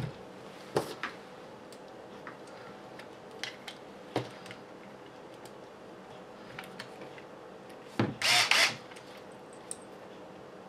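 Hand tools and small plastic and metal kit parts clicking and tapping as a locking nut is fitted with a 4-way wrench. There are a few sharp clicks, and a short, louder rattling scrape about eight seconds in.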